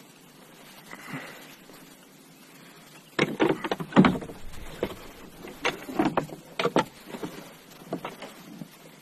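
A run of irregular knocks and thumps on a plastic kayak hull, starting about three seconds in and lasting about five seconds, the loudest about four seconds in.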